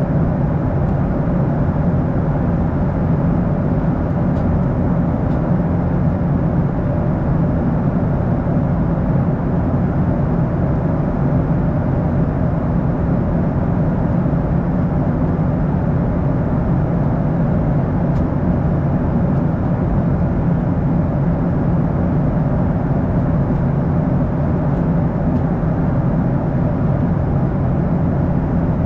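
Steady cabin drone of a Boeing 737-800 heard from a window seat: a constant low hum from its CFM56-7B turbofan engines mixed with rushing noise, unchanging throughout.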